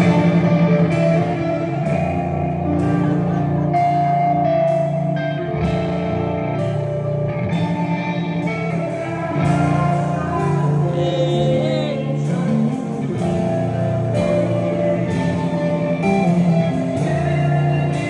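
Live rock band playing loudly: electric guitar and drum kit in a dense, steady mix.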